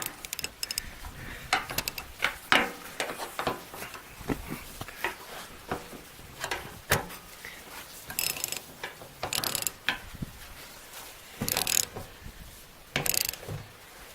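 Ratchet wrench clicking in irregular runs as it turns a nut on the wheelbarrow's axle, with a few short rasping bursts of quicker ratcheting in the second half.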